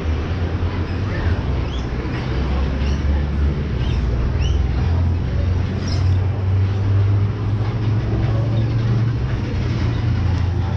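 A steady low rumble, with short rising bird chirps scattered over it every second or so.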